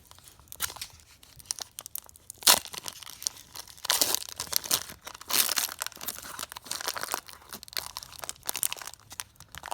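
A trading-card pack's wrapper being torn open and crinkled by hand: a run of crackles and rustles, with a sharp tear about two and a half seconds in.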